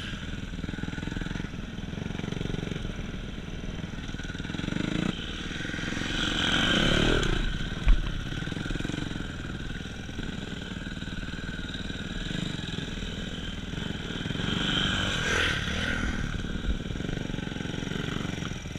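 Motorcycle engine running, swelling louder twice: about six seconds in and again about fifteen seconds in.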